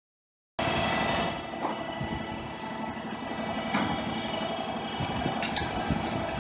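Heavy machinery engine running steadily, with a few sharp knocks over it; it cuts in abruptly about half a second in.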